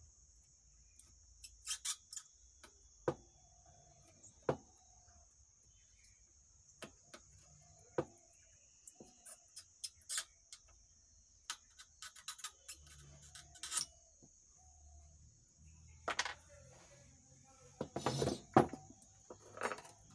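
Light, scattered clicks and taps of a soldering iron and hand tools on an amplifier circuit board as a shorted MOSFET is desoldered, over a faint steady high-pitched whine. Louder knocks and clatter come near the end as the board is handled.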